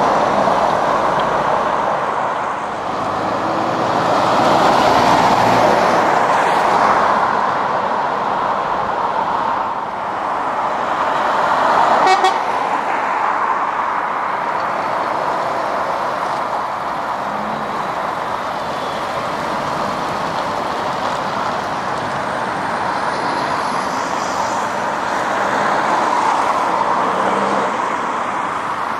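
Traffic of lorries going past, the noise swelling and fading as each passes, with one short horn toot about twelve seconds in.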